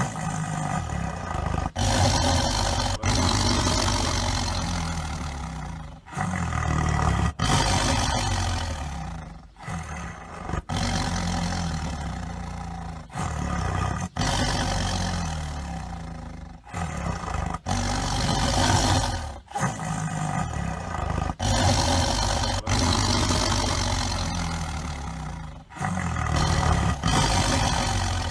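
Tigers roaring and growling, one deep rough roar after another with abrupt breaks between them.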